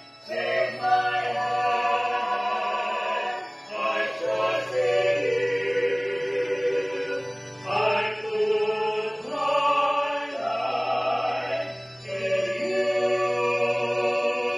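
A small vocal group singing a slow song in harmony over a keyboard's sustained chords and low bass notes. The voices hold long notes in phrases of about four seconds, with short breaks between them.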